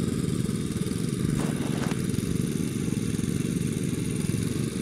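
A small engine running steadily, heard as an even low rumble, with a couple of faint ticks about a second and a half in.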